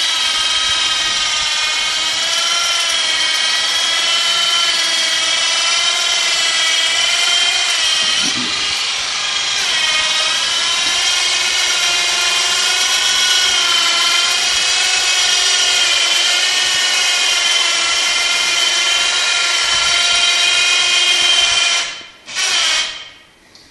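Electric motor of a 12-volt battery-powered, belt-driven airplane towbar whining steadily as it pushes a light aircraft along. The pitch wavers slightly with the load. The whine stops near the end, then comes back in one short burst.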